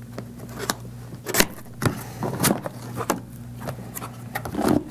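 Cardboard product box being handled and opened: a run of scrapes, rustles and taps as the lid flap is lifted, over a steady low hum.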